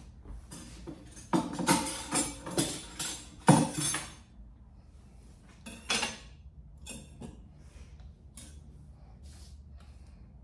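Kitchen clatter of cookware and utensils: a quick run of knocks and clinks from about one to four seconds in, a single sharper knock about six seconds in, then lighter clicks.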